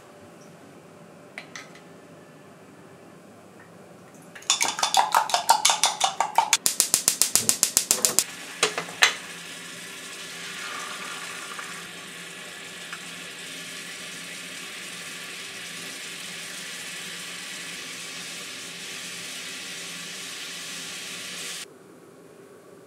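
Eggs beaten briskly in a glass measuring jug, a rapid clatter for about four seconds. Then egg frying in a square divided frying pan, a steady sizzle that cuts off suddenly near the end.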